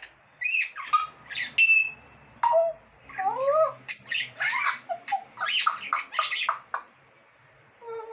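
Pet parrot calling in a quick run of short chattering and whistled calls, some with gliding pitch, in the way a talking parrot mimics voices; it falls quiet for about a second near the end.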